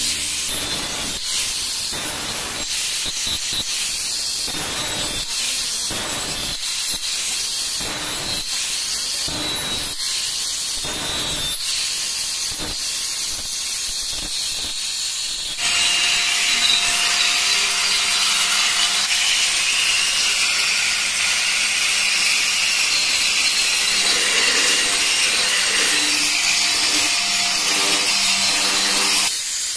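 Angle grinder with an abrasive disc grinding the cut edge of a porcelain tile strip to make it smooth and neat. For the first half it comes in short repeated strokes. About halfway it becomes louder and continuous, and it stops just before the end.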